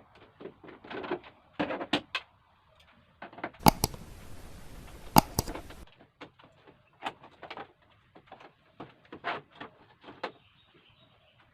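Scattered clicks, taps and knocks of hands and tools working on an LED TV set, with a stretch of hiss in the middle broken by two sharp clicks.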